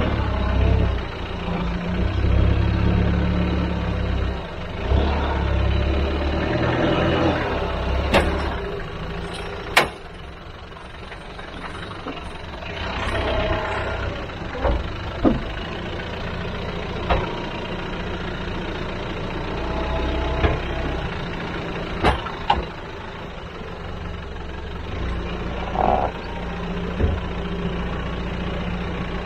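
Land Rover Discovery 1's 300tdi four-cylinder turbo-diesel working at low revs as it crawls up rock steps, the engine note swelling and easing with the throttle, with a few sharp knocks along the way.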